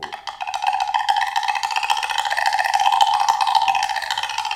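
Wooden woodblock played with a ricochet roll: the flexible rattan shafts of two mallets bounce rapidly against the block's edge, making a continuous fast rattle of wooden taps at one ringing pitch, swelling louder toward the middle.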